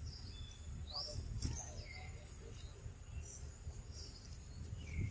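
A few short, high chirping animal calls, one sweeping sharply upward about a second in, over a steady low rumble.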